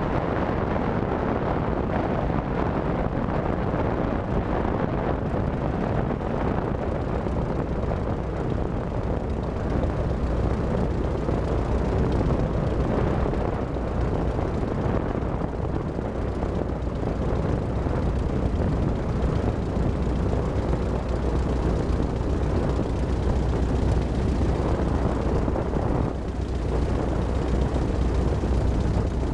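Zenith CH200 light aircraft's piston engine and propeller running at low power while taxiing, a steady low drone.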